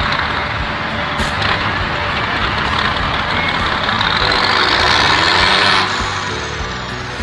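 LIAZ trial truck's diesel engine working hard under load as it pulls through deep mud, growing louder with a rising high whine that peaks about six seconds in, then the engine note drops.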